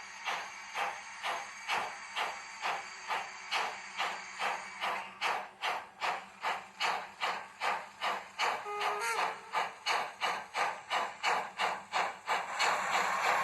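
Steam locomotive chuffs from the sound decoder of a Piko BR 83.10 model locomotive, played through its small onboard speaker, speeding up from under two to nearly three beats a second as the model gathers speed. A short tonal sound comes about nine seconds in, and a steady steam hiss swells near the end.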